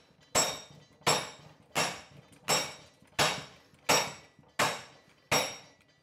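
Hand hammer striking red-hot leaf spring steel clamped in a vise, bending it over. There are eight evenly spaced blows, a little under one a second, each with a short metallic ring.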